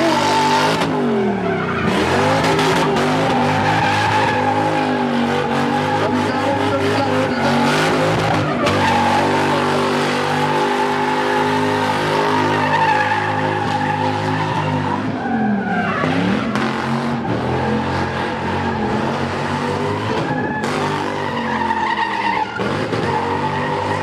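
A car engine held at high revs while the tyres squeal through a drift; the revs drop and climb back about two seconds in and again around sixteen seconds in.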